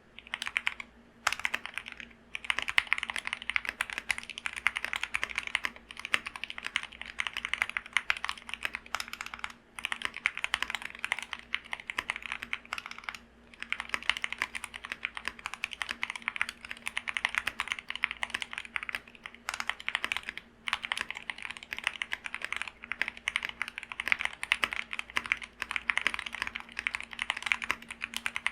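Continuous fast typing on an Epomaker SK64 mechanical keyboard with lubed Gateron Optical Black linear switches, foam-modded, under NP-profile PBT keycaps. The key clicks run in dense streams, with a few short pauses between bursts.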